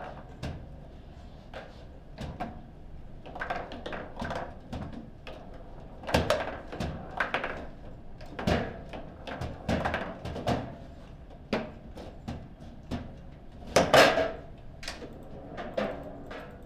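Table football being played: the ball is struck by the rod figures and knocks against the table, an irregular run of sharp clacks and thuds, the loudest about fourteen seconds in. A goal is scored during the rally.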